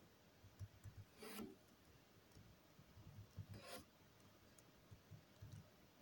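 Near silence, broken by two faint, brief rubbing clicks about a second in and again near four seconds in. They are handling noises from a computer's mouse and keyboard while a document is being edited.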